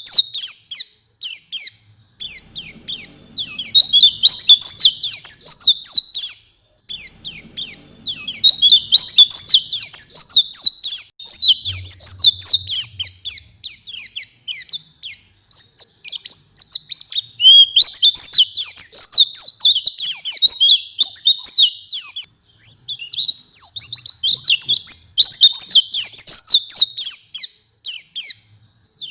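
A white-eye (pleci) singing vigorously: long bouts of rapid, high twittering song packed with varied phrases, broken by short pauses.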